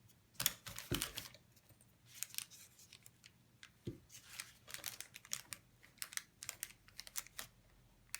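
Two-part epoxy paste glue being mixed with a tool on a hard surface: a faint, irregular run of short scrapes and clicks, several a second.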